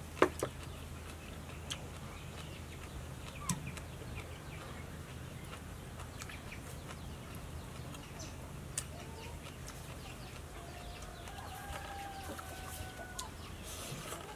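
Chickens clucking faintly, with a drawn-out call in the last few seconds, over a steady low hum. A few sharp clicks stand out, the loudest right at the start.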